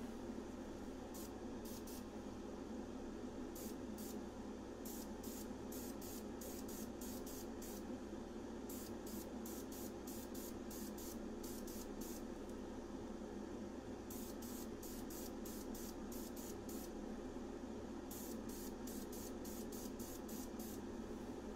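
Krylon aerosol spray-paint can sprayed in dozens of short bursts, a few a second, in runs with brief pauses between, putting a light second coat of paint onto a plastic pistol grip. A steady hum runs underneath.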